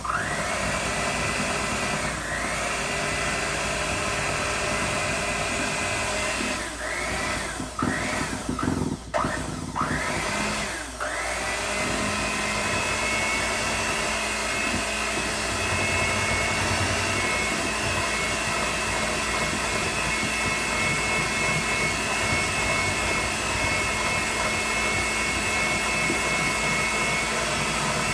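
Electric hand mixer running, beating butter and powdered sugar. It cuts out and spins back up several times between about six and eleven seconds in, then runs on at a steady speed.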